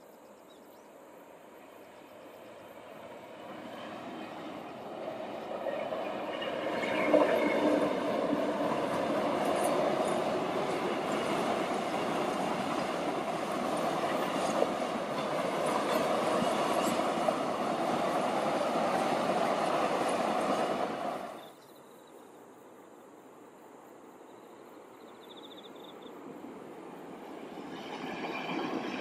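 Train running past on the track, its wheels and cars rumbling on the rails. The sound swells over several seconds, holds steady, and cuts off abruptly about two-thirds of the way through. A second train then grows louder toward the end as it approaches.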